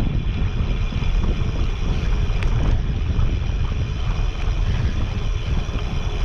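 Steady wind rumble on a GoPro microphone while cycling along a paved road on a single-speed bicycle.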